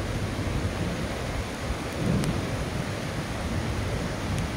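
Creek swollen by a flash flood, rushing steadily with a low noise that swells briefly about two seconds in.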